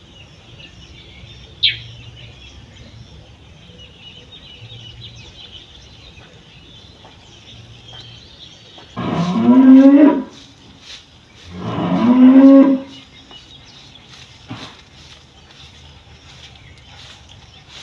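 Domestic cow mooing twice in two loud, drawn-out calls about halfway through, a second or so apart, each rising a little in pitch. Faint bird chirps sound in the background, with one brief sharp high chirp about two seconds in.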